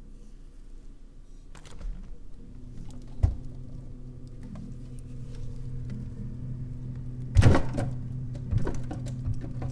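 KitchenAid refrigerator knocking: a handful of irregular sharp knocks, the loudest about seven and a half seconds in, over a steady low hum that sets in about two and a half seconds in.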